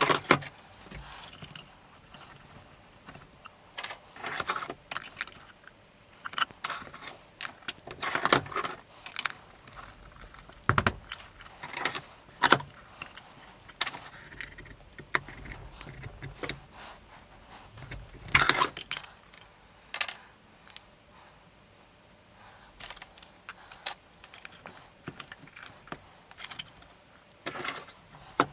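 Cast-iron bench vise being worked: irregular metallic clinks and knocks as its sliding handle is turned and the steel helmet's top is clamped between wooden blocks in the jaws.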